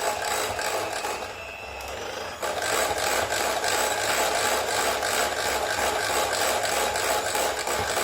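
Electric hand mixer running steadily as it whips a pink icing that has not yet formed peaks. It eases off briefly about a second in.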